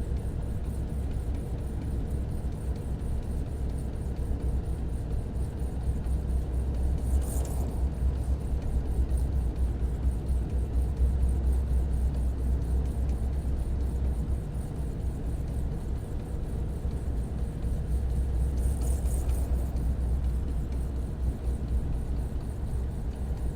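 Semi truck driving on an icy road with tire chains on: a steady low engine and road rumble, with two brief hisses about seven and nineteen seconds in.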